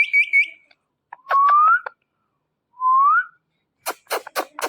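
Pet parrot whistling: three quick high chirps, then two clear whistles that each rise in pitch. A run of sharp clicks follows near the end.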